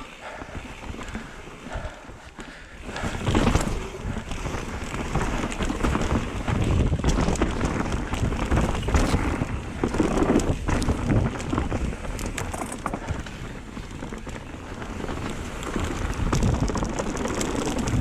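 Mountain bike riding down a dirt trail: tyres rolling and crunching over rough ground with quick clicks and rattles over bumps, and wind on the microphone. It gets much louder about three seconds in as the bike picks up speed.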